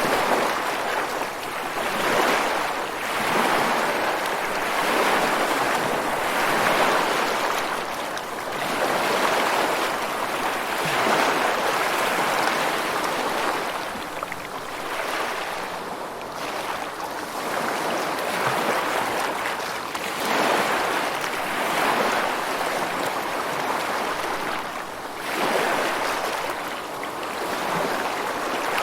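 Rushing water noise that swells and eases every two to three seconds, like surf.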